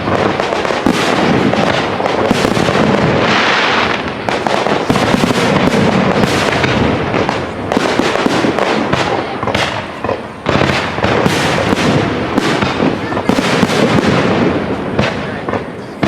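Fireworks display: many shells bursting in quick succession, with dense crackling between the bangs.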